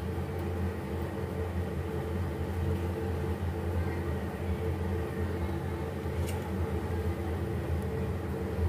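Steady low machine hum, with a faint tick about six seconds in.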